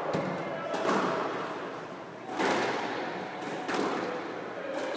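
Squash rally: the ball is struck hard by rackets and hits the walls about once a second, each sharp crack echoing around the enclosed court.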